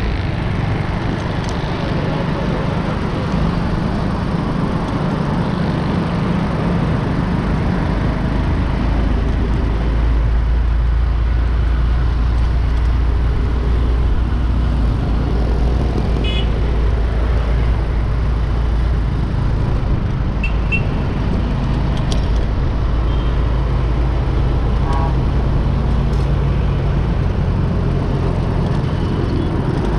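Dense city road traffic: a steady rumble of engines and tyres, with a few short vehicle horn toots in the middle and later part.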